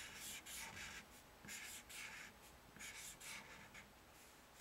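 A black Sharpie permanent marker drawn across paper in a series of short, faint strokes, roughly in pairs, as short curved lines are inked.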